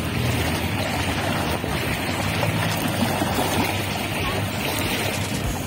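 Small river waves lapping and washing on a pebble shore, a steady watery wash with a low hum underneath.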